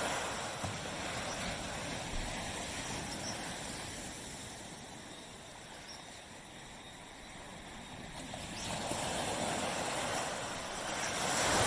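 Tropical sea waves washing onto a beach. The surf noise ebbs to its quietest about halfway through, then swells again as the next wave comes in near the end.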